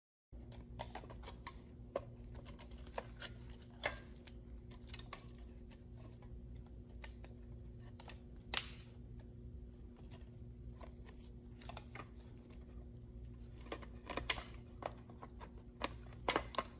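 Scattered light clicks and taps of hands working on the Uconnect head unit's plastic parts and ribbon-cable connector tabs, one sharper click about halfway through and a few close together near the end, over a faint steady electrical hum.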